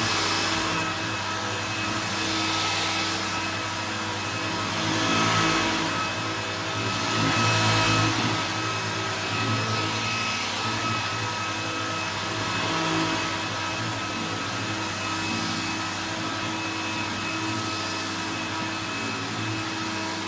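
1968 Hoover Convertible 1124 upright vacuum cleaner running, with a steady motor whine and hum that swells and eases in loudness every few seconds.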